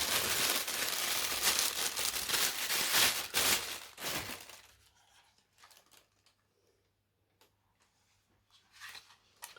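Plastic wrapping crinkling and tearing as a newly unboxed camera body is unwrapped. It stops about four and a half seconds in, followed by a few faint clicks near the end.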